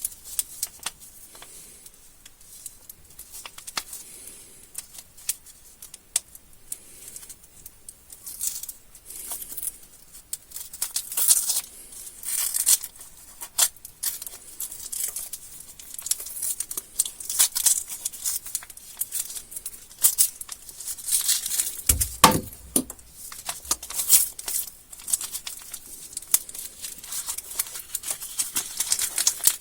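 Candy wrappers being crinkled and torn open by hand in a steady run of irregular crackles, with a single knock about three-quarters of the way through.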